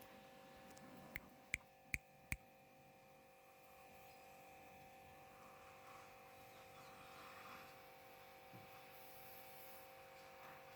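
Near silence with a steady faint hum, broken a little over a second in by four sharp clicks in quick succession, about two or three a second.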